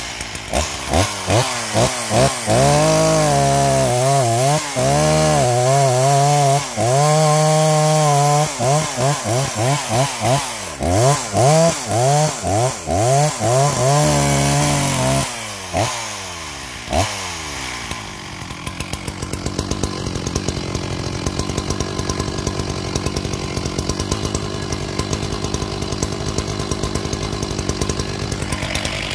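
Freshly rebuilt Stihl 064 two-stroke chainsaw being revved hard again and again, its engine speed swinging up and down for about fifteen seconds. Then it drops back and settles into a steady idle.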